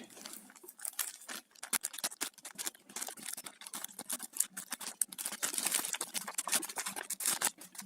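A package being opened by hand: a busy run of small crackles, clicks and rustles of the packaging being cut and pulled apart.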